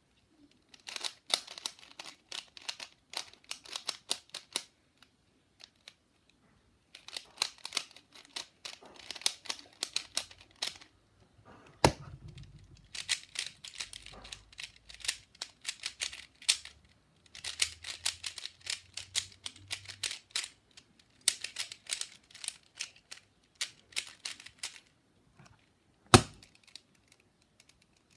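Plastic 3x3 puzzle cube being turned fast, its layers clicking and clacking in rapid runs of a few seconds each with short pauses between. Two single sharp knocks stand out, one a little before the middle and a louder one near the end.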